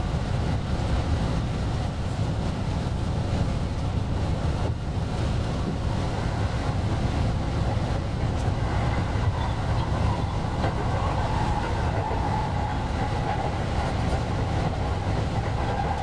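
Running noise of a JR West 223 series electric train: a steady low rumble of the train under way, with a whine that comes up about halfway through and holds.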